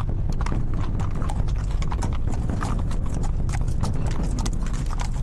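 Hooves of several ridden horses clip-clopping in a dense, irregular patter over a low steady rumble.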